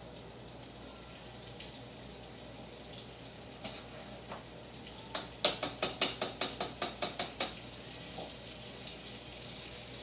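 Flour-dredged beef cubes frying in oil with a faint, steady sizzle. About halfway in comes a quick run of about ten light taps as a wire spider strainer is shaken and knocked against a mixing bowl to shake off excess flour.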